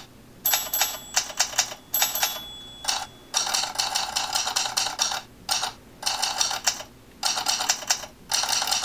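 iTypeWriter tweak's typewriter key-strike sound effects played by an iPhone as its on-screen keyboard is tapped. Fast runs of clacks come in bursts of a second or two, with short pauses between the bursts.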